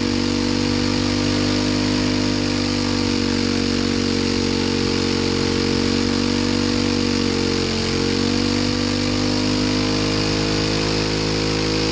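Turbocharged Predator 212 single-cylinder engine running at a steady held speed on a water brake dyno. Its pitch sags briefly about eight seconds in and then recovers.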